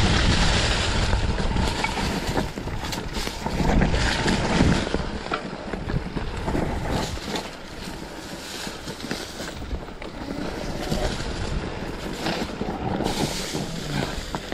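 Wind buffeting the microphone of a mountain bike on a rough dirt singletrack. Tyres rumble over the ground, and there are irregular knocks and rattles from the bike as it hits bumps, loudest in the first few seconds.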